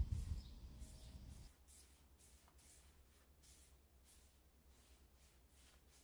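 Faint, rhythmic swishing of a paint brush stroking chalk paint onto an upholstered chair's wooden frame, about two or three strokes a second. A low hum fades out over the first second and a half.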